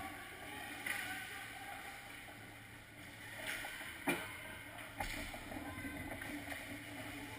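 Ice hockey play on the rink: skates scraping and carving on the ice with stick clatter, and a sharp knock about four seconds in.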